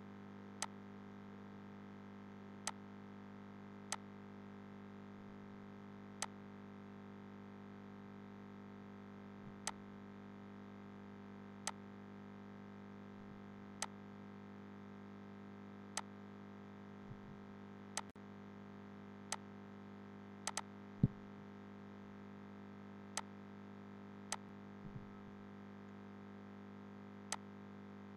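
Computer mouse clicking now and then, a short sharp click every one to three seconds, with one louder click about two-thirds of the way through. The clicks sit over a faint steady electrical hum.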